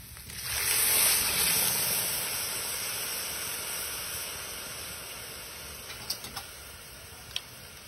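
Water poured onto rice toasted in hot oil in a large metal pot hisses and sizzles, loudest about a second in and slowly dying away. A few faint pops come near the end.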